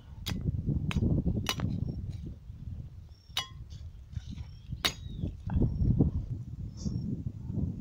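Wind buffeting the microphone in uneven gusts, with about five sharp clicks and snaps spread through the first five seconds as a knife blade knocks against thorny branches. One click rings briefly, like metal.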